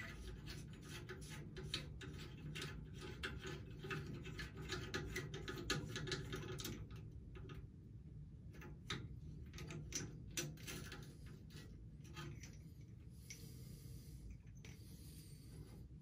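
Small metallic clicks and scraping of hands loosening the steam boiler's sight glass fittings, quick and dense at first and thinning out after about seven seconds. A low steady hum runs underneath.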